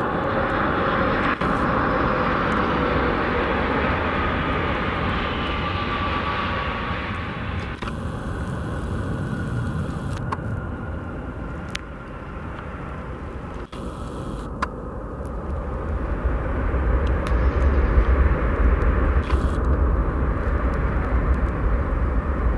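Boeing C-32A (military 757-200) landing, its Pratt & Whitney PW2040 turbofans whining with a falling pitch as it passes, under a steady rushing roar. Over the last several seconds a deep rumble builds and grows louder as the jet rolls out on the runway.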